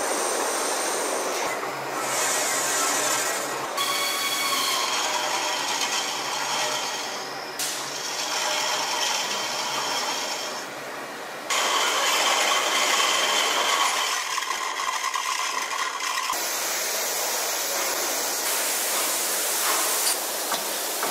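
Large lathe turning a big rusty metal casting while a single-point tool bit cuts across its face, shearing off chips: a steady grinding hiss with a faint high whistle at times. The sound changes abruptly every few seconds.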